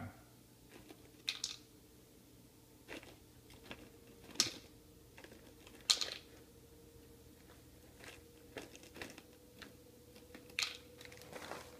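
Faint, scattered small crinkles and crunches a second or two apart, from goldfish crackers being handled, over a faint steady hum.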